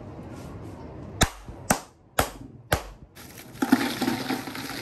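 Ice cubes being smashed to crush them for drinks: four sharp strikes about half a second apart, then a denser clatter of ice near the end.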